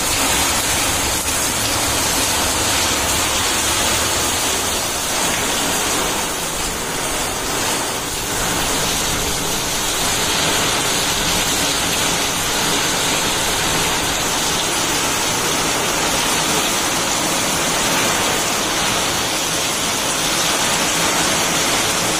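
Heavy rain falling steadily on a flat concrete terrace: a dense, even hiss of splashing drops.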